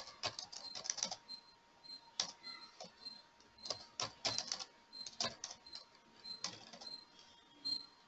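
Computer keyboard typing and mouse clicks in short irregular bursts, as values are entered into form fields.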